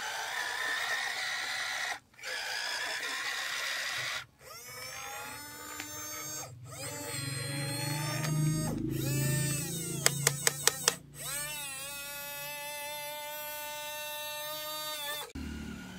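Small electric gear motors of a toy radio-controlled excavator whining in short runs as the boom, arm and bucket move, each run rising in pitch as it starts and then holding steady. A quick run of five sharp clicks comes about ten seconds in.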